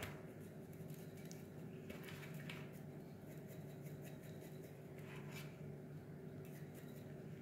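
Faint squishing and rustling of a plastic-gloved hand rubbing spices into raw fish in a metal baking tray, with a few soft shakes of a spice jar, over a steady low hum.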